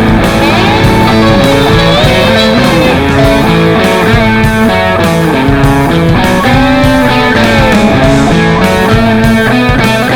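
Rock music with electric guitars: a bending lead guitar line over a steady beat.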